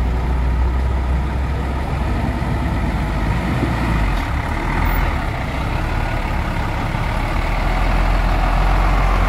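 Hino FM 260 Ti truck's diesel engine running at low revs as it creeps forward through floodwater, a steady low rumble that grows a little louder near the end as the truck comes alongside.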